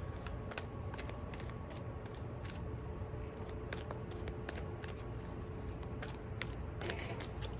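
Tarot cards being shuffled and handled: a run of short, irregular clicks and snaps over a steady low background hum.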